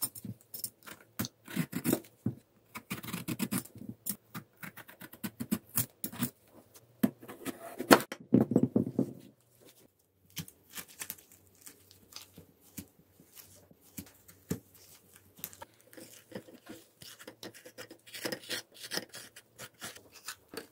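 Close-up cooking sounds of a Korean melon being prepared: a vegetable peeler scrapes strips of rind off in quick strokes. About eight seconds in, a sharp knock on a wooden cutting board comes as the melon is cut in half. After that, a wooden spoon softly scrapes the seeds and pulp out of the halves.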